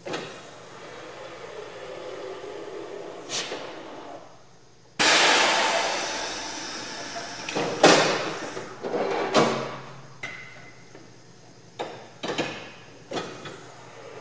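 Car repair shop work sounds: scattered knocks and clanks of tools and parts. A sudden burst of rushing noise about five seconds in fades away over a couple of seconds.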